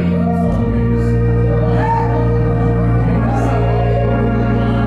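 Gospel church music: held organ chords with singing voices over them.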